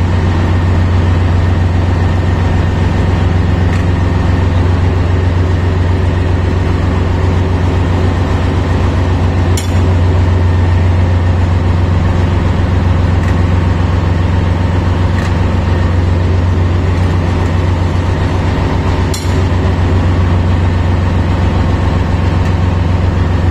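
Steady low drone of heavy running machinery, an even pitched hum that does not change, with two faint clicks about ten and nineteen seconds in.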